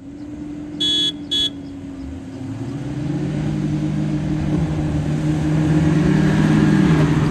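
Two short car-horn toots about a second in, giving the start signal. Then a Suzuki Jimny and a Toyota Fortuner launch side by side under hard acceleration, their engines revving and rising in pitch and getting louder over the next several seconds.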